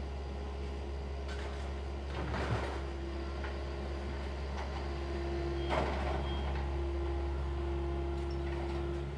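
Excavator's engine running steadily while it breaks up a wooden house, with crashing and crunching of timber debris, loudest about two and a half and six seconds in. A steady whine comes in about three seconds in.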